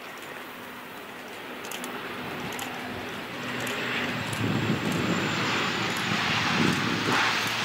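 Bombardier Dash 8 Q400 airliner's twin turboprop engines and propellers on landing approach, growing steadily louder as it comes in low over the runway.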